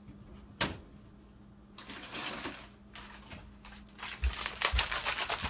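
A package of dried goji berries being taken down and handled: a single sharp click, then rustling, and a rapid run of crinkling crackles near the end, the loudest part.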